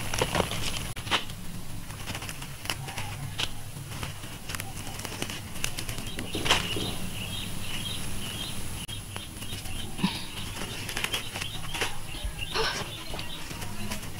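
Rustling of green mustard-green leaves and stems and crumbling soil as the plants are pulled up by hand, with scattered clicks and crackles of handling close to the microphone.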